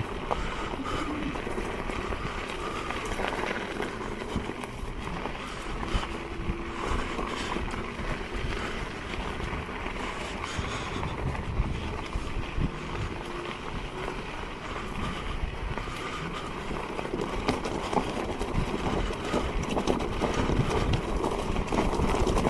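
Electric unicycle riding over a rough dirt path: wind rumbling on the microphone, with a continual crunch and frequent knocks and rattles from the tyre on the uneven ground.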